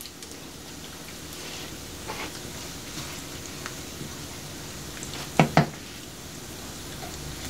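Steady sizzling hiss from the stovetop as instant rice goes into a saucepan of just-boiled water and is stirred. Two quick knocks about a quarter second apart a little past five seconds in.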